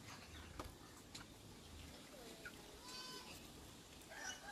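Faint farm animal calls in the background: a short gliding call, then a fuller bleat-like call about three seconds in. A few light clicks are heard along with them.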